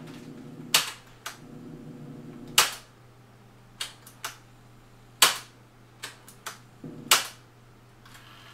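Piano-key transport buttons on a Sharp VZ-3000 stereo's cassette deck being pressed and released: a string of sharp mechanical clunks, about nine in all, four of them loud. In the first couple of seconds the tape transport is running with a steady low whir, which halts briefly and then stops after the third clunk.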